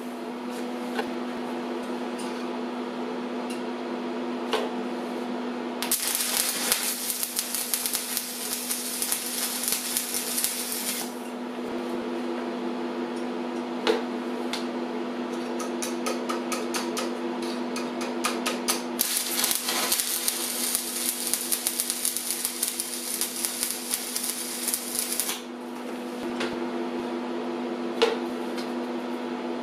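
Stick welding: the electric arc crackles and hisses in two long spells, over a steady hum from the welding machine. Between the spells come quick light metallic taps and clicks, a few of them sharper.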